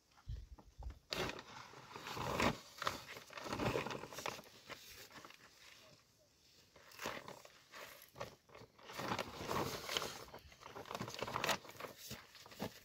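A shovel scraping and scooping through a gritty pile of sand and cement, in irregular crunching strokes.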